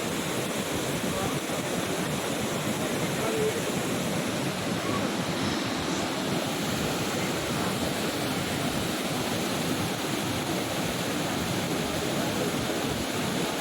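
Steady rush of falling water from Athirapilly Falls, a large waterfall on the Chalakudy River, an even, unbroken noise.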